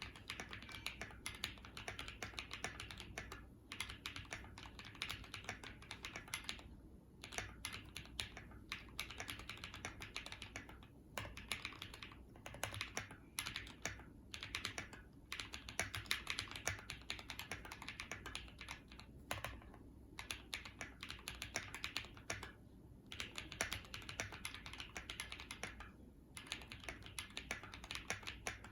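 Typing on a custom 60% mechanical keyboard with lubed Durock POM linear switches in an aluminum Tofu 60 case with a polycarbonate plate: a fast, steady patter of deep, muted keystrokes in bursts, broken by short pauses every few seconds.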